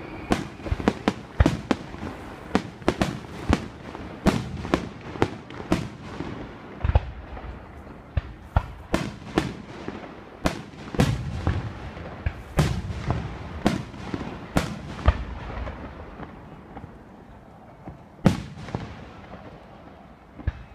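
Aerial fireworks shells bursting in quick succession: a rapid string of sharp bangs, each trailing off in echo. The bangs thin out after about fifteen seconds, leaving a couple of single loud bangs near the end.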